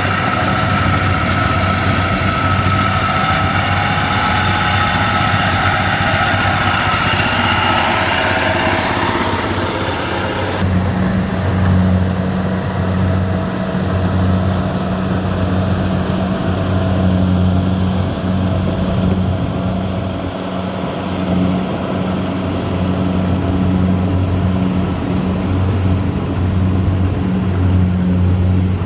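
Tractor engines running. For about the first ten seconds a higher engine note carries a whine; then, after a sudden change, a lower steady engine drone rises and falls slightly.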